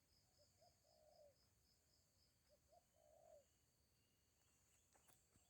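Faint forest ambience: a dove cooing a low phrase of two short notes and a longer one, repeated about every two seconds, over steady high insect chirring that pulses rapidly. A single sharp click comes near the end.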